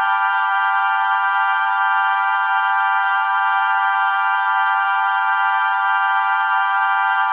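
Music: a single sustained organ-like keyboard drone, held completely steady with no rhythm or change, its tone sitting high with no bass underneath.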